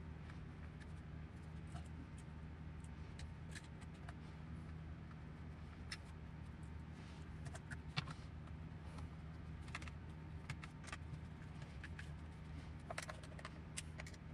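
Small clicks and ticks of hand-assembling plastic RC car parts: a hex driver turning screws into a plastic chassis part, and parts knocking together, one sharper click about eight seconds in. A steady low hum lies under it all.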